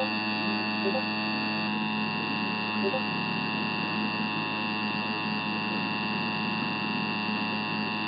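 Emergency Alert System attention signal, the two-tone alert (853 and 960 Hz), held steady for about eight seconds and cutting off abruptly at the end. Heard off an AM radio broadcast, it comes through distorted into a buzzy hum with many added tones.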